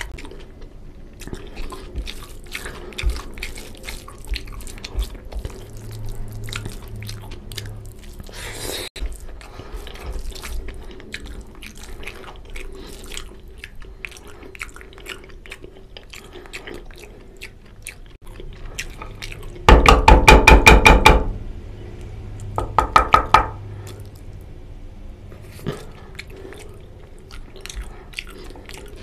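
Close-miked wet eating sounds of mutton curry and rice eaten by hand: fingers squishing the curry-soaked rice, chewing and lip smacks, many small wet clicks. About two-thirds through comes a loud burst of rapid pulsing lasting over a second, and a shorter one a moment later.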